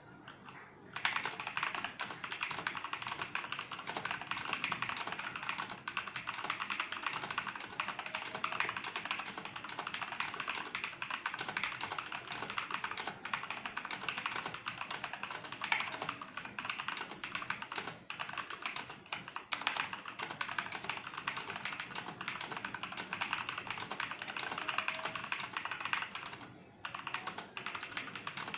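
Fast, continuous typing on an Azio MGK L80 RGB mechanical keyboard, a dense stream of key clacks. It starts about a second in and pauses briefly near the end.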